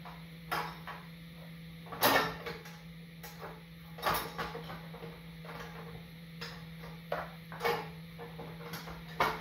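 Scattered metallic clinks and knocks of exhaust header pipes and fittings being worked into position on a motorcycle engine. The loudest knock is about two seconds in. A steady low hum sits underneath.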